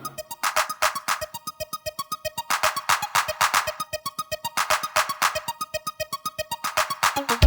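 Electronic music with a fast, even ticking beat and short repeating synth notes.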